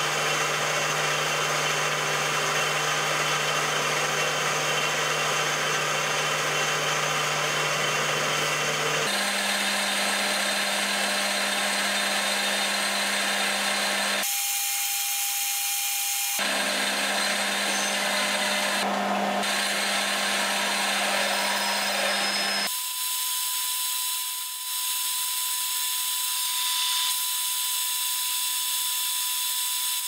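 Metal lathe running and cutting a metal rod: first turning with a cutting tool, later center drilling and drilling the end from a tailstock drill chuck. It is a steady machine sound with a steady hum, changing abruptly several times.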